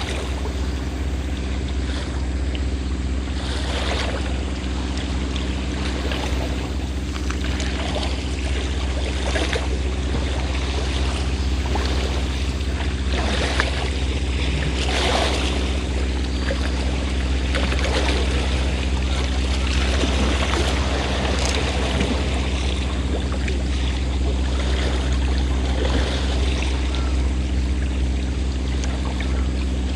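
A fishing boat's engine running steadily at a low, even drone, with sea waves lapping and splashing irregularly over it.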